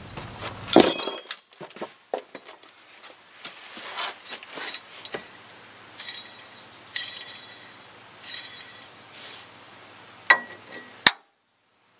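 Steel pullers clinking and clattering against the van's steering linkage as they are tried on the joint: a loud clatter about a second in, scattered clicks, and several short ringing clinks later on. The sound cuts off abruptly about a second before the end.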